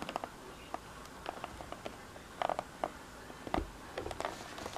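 A small cardboard retail phone box being handled and turned over: scattered light clicks, taps and faint rustles, with one slightly heavier knock past the middle.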